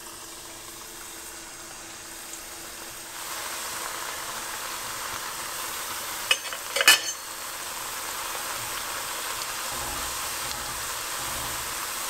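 Small flat dough puris (papdi) sizzling as they deep-fry in hot oil. The sizzle grows louder about three seconds in and again about eight seconds in as more puris go into the oil. A few sharp clicks and one clink come about six to seven seconds in.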